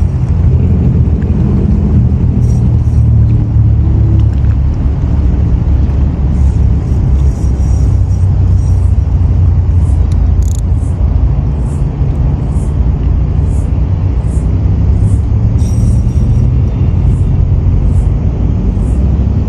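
Wind buffeting the microphone: a loud, steady low rumble that rises and falls unevenly.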